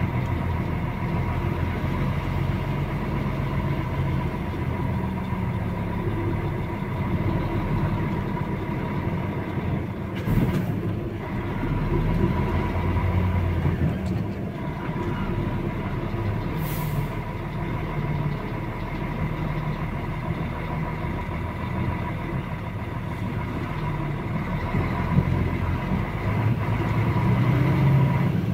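Truck engine running and tyres on worn asphalt, heard from inside the cab as a steady rumble. Two short hisses cut in, about ten and seventeen seconds in.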